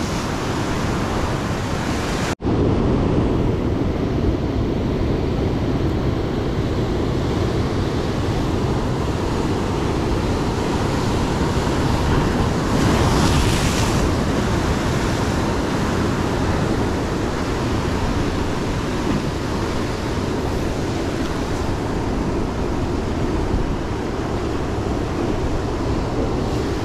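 Heavy Pacific surf breaking and washing over rocks, a steady rushing wash with wind on the microphone. It cuts out for an instant about two seconds in, and a louder wave crash comes about halfway through.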